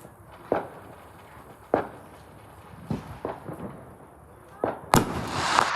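Fireworks going off: separate sharp bangs about once a second, then near the end a loud bang followed by dense crackling.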